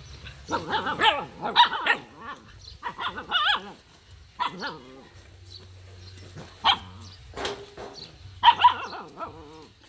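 Several puppies play-fighting, giving short barks and yelps in repeated bursts, loudest in the first two seconds and again near the end.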